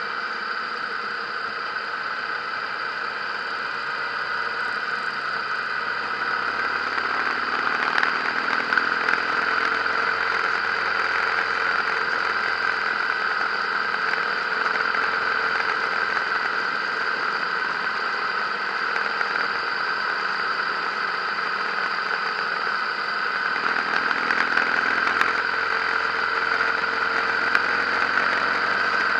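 Harley-Davidson V-twin motorcycle engine running under way, under a steady rush of wind noise; the engine sound swells slightly about seven seconds in and again near the end.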